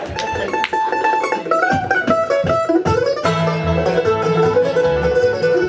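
Acoustic bluegrass band starting a tune: banjo, fiddle, resonator guitar, guitar and upright bass. A few lead notes open it, and about three seconds in the whole band comes in with a steady bass beat under the picking.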